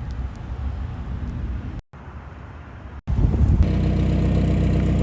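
Mazda Miata engine running, heard in short cut-together clips. After a cut about three seconds in, it settles into a louder, steady idle.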